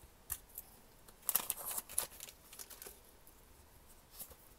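A trading-card blister pack being opened by hand: short, sharp crinkles and clicks of plastic and foil packaging in several scattered clusters.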